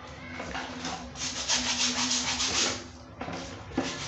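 A hand scrub brush scrubbing the rubber sole of a Vans sneaker with fast back-and-forth strokes. The strokes come in bursts, loudest in the middle, with a short pause and one sharp knock near the end.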